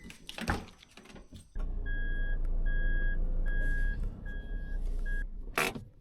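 Small truck's engine running with its reversing alarm beeping: five long, evenly spaced beeps. A short knock comes before the engine starts, and a brief loud rustle or bang follows near the end.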